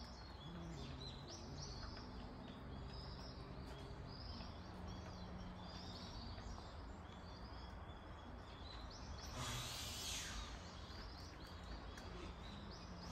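Faint outdoor ambience with small birds chirping on and off, and a short louder rush of noise with a falling tone about ten seconds in.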